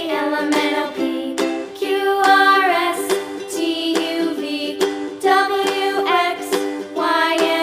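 Cheerful background music for children, a plucked ukulele-like accompaniment with a sung or voice-like melody.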